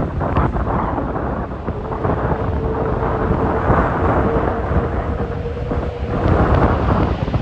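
Storm-force gusts of wind buffeting the microphone, a loud low rumble. A faint steady tone runs through the middle of it, from about two seconds in to about six seconds in.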